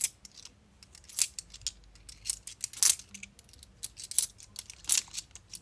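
UK £2 coins clinking against one another as a small stack is worked through by hand: irregular light metallic clicks, with about four louder clinks spread through.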